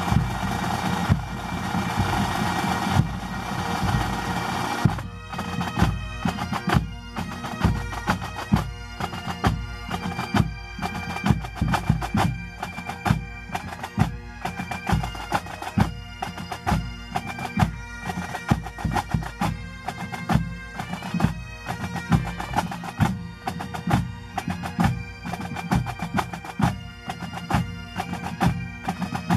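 Pipe band music: Highland bagpipes playing a tune over drums. About five seconds in, the sound becomes a clear melody with regular drum strokes.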